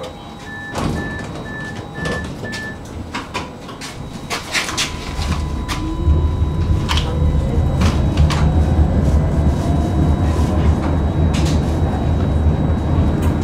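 Tram stop sounds: five short warning beeps, then several knocks and clunks as the doors close. About five seconds in the tram pulls away, its traction motor whining upward in pitch over a low rumble of the wheels on the rails that grows louder and steadies.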